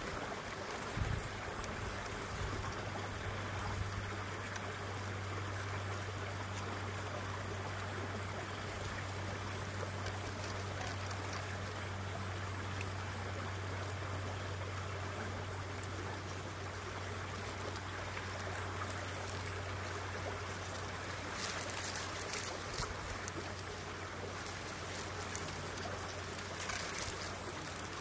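Steady rushing noise of water, with a low steady hum underneath. A few brief clicks or rustles come about three quarters of the way through.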